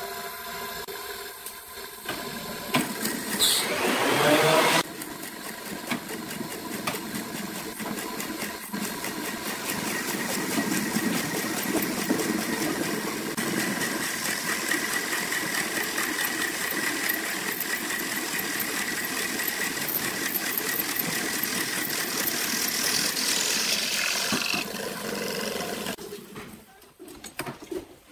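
Wood lathe running while a turning tool cuts into a spinning segmented wood blank, a steady scraping, rattling noise over the motor, with a louder burst a few seconds in. The noise falls away near the end.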